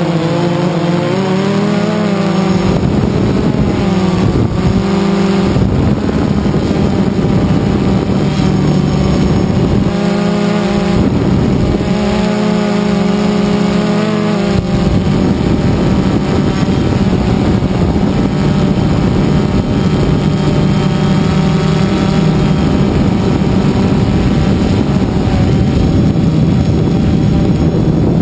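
DJI Phantom 2 quadcopter's electric motors and propellers, heard close up from the drone's own camera: a steady buzzing hum with a constant rush of prop wash. The pitch shifts up and down several times as the drone manoeuvres.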